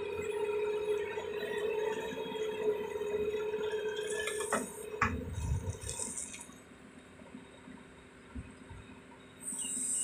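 Doosan 180W-V wheeled excavator's engine and hydraulics running with a steady whine while the bucket works. A couple of sharp knocks come about halfway through as the loaded bucket swings and dumps its soil, then the machine goes quieter.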